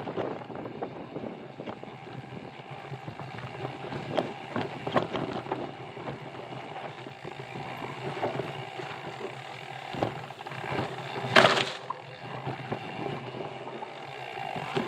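Mountain bike riding over a rough trail: steady tyre and trail noise with scattered rattles and clicks from the bike. One louder, harsher burst comes about three-quarters of the way through.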